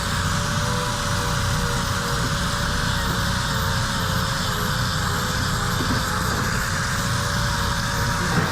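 Hoof-trimming angle grinder running steadily, its motor pitch sagging briefly around the middle as it is pressed into the cow's hoof.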